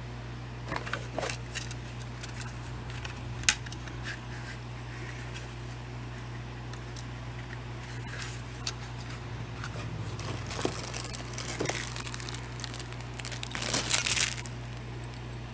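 Packaging crinkling and tearing as a product is unwrapped by hand, with scattered clicks and one sharp click about three and a half seconds in. The loudest crinkling comes near the end. A steady low hum runs underneath.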